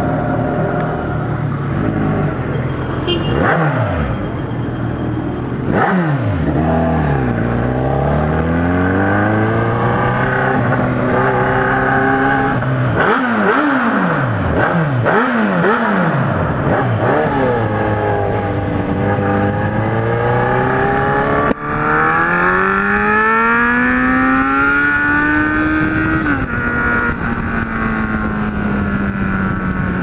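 Kawasaki Z1000's inline-four on an open exhaust (just the pipe, no silencer) accelerating through the gears. Its pitch climbs and drops sharply at each shift, with quick rev rises and falls near the start and in the middle, then it settles into a steadier cruise near the end.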